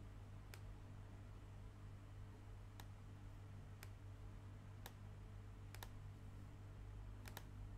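Computer mouse clicking, about eight sharp clicks spread over several seconds, the last few in quick pairs, over a faint steady low hum.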